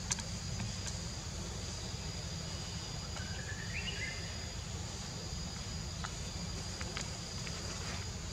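Insects droning steadily in two high held tones over a low steady rumble. A short rising chirp comes about three and a half seconds in, with a few faint clicks.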